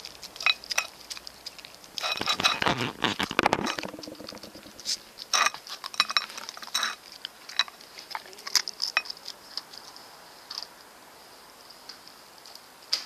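A dog licking and chewing a soft meat loaf off a plate: irregular wet smacks and small clicks and knocks against the plate, with a denser spell of chewing about two seconds in and fewer sounds near the end.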